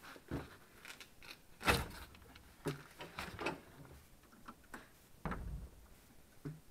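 Irregular clicks, knocks and creaks, like handling of a machine, with two heavier thumps about two seconds and five seconds in.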